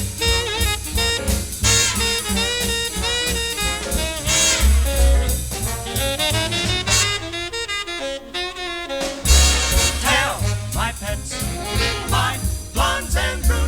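Instrumental break of a 1950s swing big-band arrangement, with saxophones and brass playing over bass and drums. The bass end drops out for a couple of seconds past the middle, then the full band comes back in.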